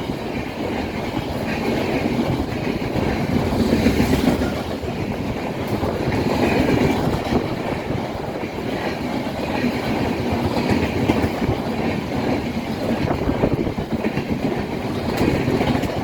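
Express train running past at speed: a continuous rumble with wheels clattering over the rail joints, rising and falling slightly in loudness.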